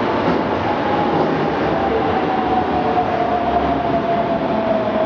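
Osaka subway Yotsubashi Line electric train running alongside the platform: a steady loud rumble with a motor whine that falls slowly in pitch as the train slows.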